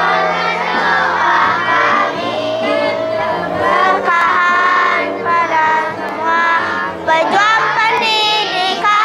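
Children's choir singing a song together.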